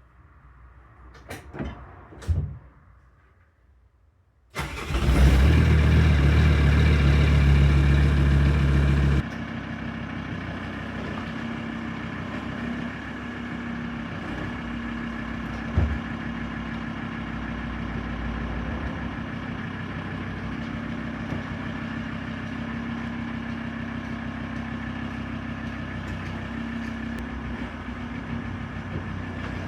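2001 VW T4 Syncro's 2.5 TDI five-cylinder diesel engine starting after a few clicks. It runs loud for about five seconds, then settles to a steady idle, with a single knock partway through.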